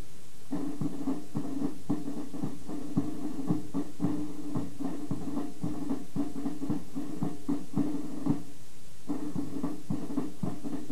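Military band playing a march: held notes over a steady, regular drum beat, breaking off briefly twice.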